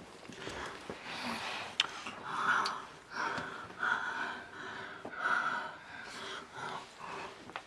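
Two people kissing: heavy, breathy breathing in repeated swells, with soft wet lip clicks.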